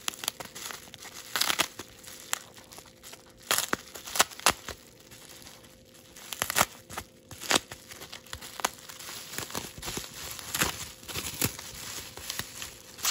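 Plastic bubble wrap crinkling and crackling as hands handle and unwrap it, in irregular sharp crackles.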